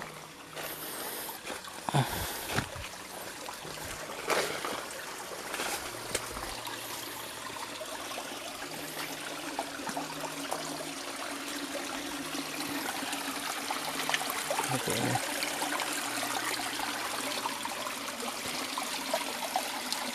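Small stream trickling and running over rocks, growing a little louder in the second half, with a few knocks and rustles of footsteps in the first few seconds.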